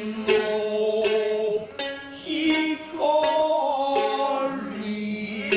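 Kabuki stage music: a chanter sings long, wavering held notes over sharp plucked shamisen notes.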